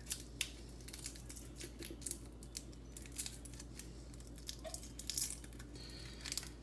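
Fingers peeling the papery skin off a garlic clove: faint, irregular crackling and ticking.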